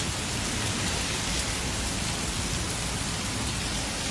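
Heavy rain pouring down in an intense summer downpour, a steady, even hiss of rain hitting surfaces.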